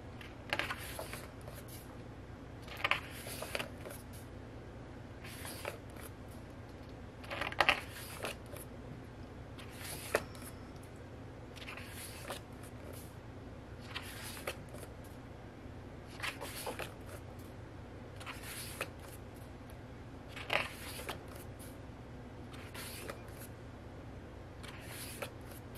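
Pages of a large photo book being turned one at a time, a short papery swish about every two seconds, over a faint steady low hum.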